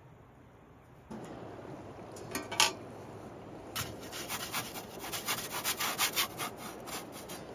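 Quick rubbing or scraping strokes, about five a second for a few seconds, after a louder scrape a couple of seconds in, over a steady background hiss that comes in about a second in.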